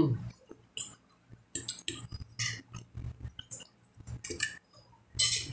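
Close-up chewing of a mouthful of sausage stroganoff and cucumber salad: irregular short, wet mouth sounds and small crunches.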